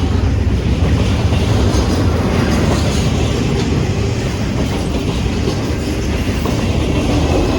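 CSX freight train's cars rolling through a grade crossing: a steady, loud rumble with rhythmic wheel clickety-clack over the rail joints.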